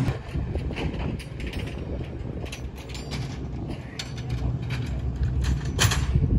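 Fishing-boat deck machinery clicking and creaking irregularly over a steady low hum.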